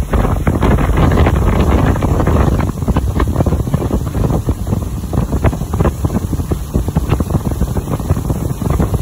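Heavy wind buffeting the microphone aboard a moving motorboat, over the steady rush of the boat's engine and wake spray.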